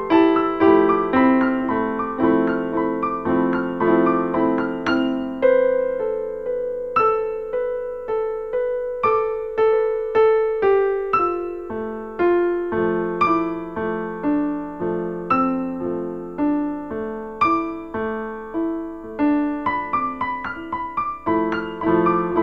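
Background piano music: a solo piano plays a gentle melody over chords, note after note struck and left to die away.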